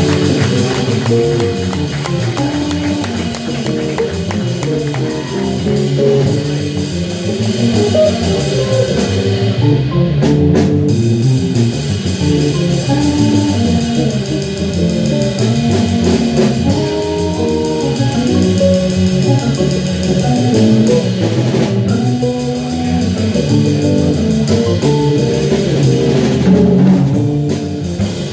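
Live jazz organ trio: an electric hollow-body guitar plays a single-note solo line over a drum kit and the Hammond B3 organ's bass line.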